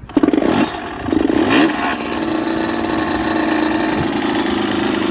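Yamaha YZ125 single-cylinder two-stroke motocross engine, freshly rebuilt top end, firing up: it catches with uneven bursts, revs briefly about a second in, then settles into a steady run.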